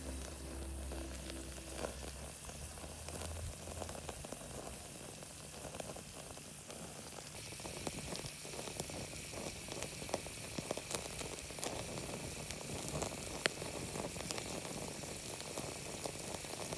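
Eggs frying in a handmade clay pot over a wood fire: a steady sizzle with frequent small sharp pops.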